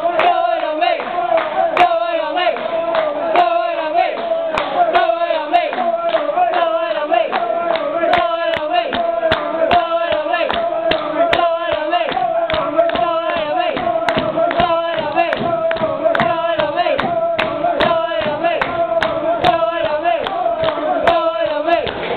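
Football supporters singing a long, drawn-out chant together, with sharp claps in time about twice a second.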